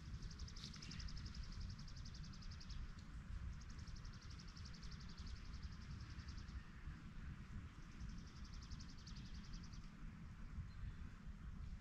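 A small songbird singing a rapid, high, dry trill three times, each trill about two to three seconds long, over a steady low rumble.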